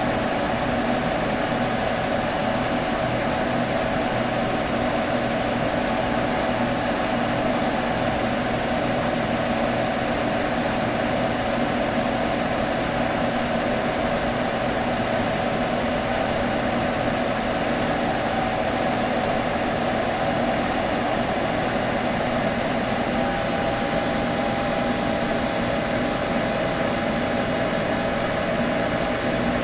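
A computer running with a steady hum and fan noise that holds even throughout, with a faint extra tone coming in about two-thirds of the way through.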